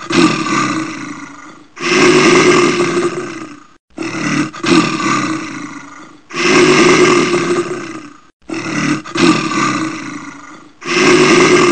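Loud animal calls, each lasting about two seconds and fading out, repeating every four to five seconds with abrupt cuts between them.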